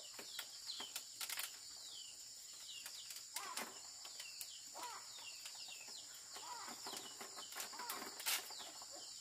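Chickens calling in short, scattered clucks and peeps over a steady high insect buzz, with a few sharp clicks.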